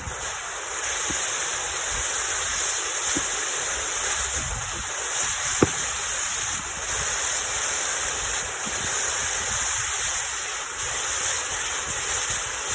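Steady rushing wind noise buffeting the microphone, with a low rumble, and a few faint sharp clicks, the clearest a little before the middle.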